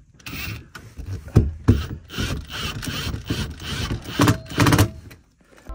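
Cordless power driver running in short bursts as it drives screws through a recliner sofa's metal frame into light-duty wood flooring, with a few sharp clacks in between.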